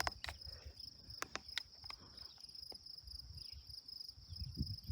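Crickets chirping in a steady, fast, high trill, with a few sharp clicks in the first two seconds.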